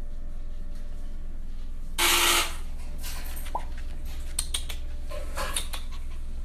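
Small dog being handled on a grooming table: a short noisy burst about two seconds in, then a brief rising squeak and a few light clicks, over a steady low hum.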